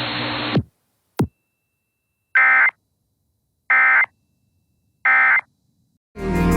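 Emergency Alert System end-of-message code: three short, identical buzzy bursts of digital data tone, evenly spaced about a second and a half apart, signalling that the alert is over. Before them the alert's hissy audio cuts off with a click, and music starts near the end.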